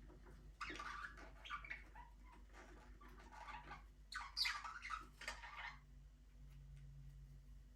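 Budgerigars chattering: faint, rapid chirps and warbles in three short bursts over about five seconds, then quieter.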